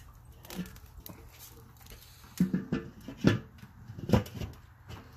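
Lid of a Weber kettle charcoal grill being set on the bowl: a few sharp knocks and clanks from about halfway in, the strongest a little past the middle.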